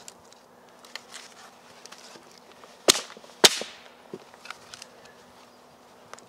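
Dry wood snapping: two sharp cracks about half a second apart midway through, the second trailing off with a brief splintering rasp, amid light rustling and small knocks of sticks being handled on a firewood stack.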